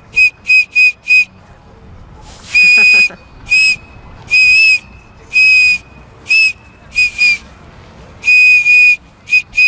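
Thomas and Friends toy whistle blown in a string of short toots and longer blasts, each on one steady high note with a breathy edge; so loud.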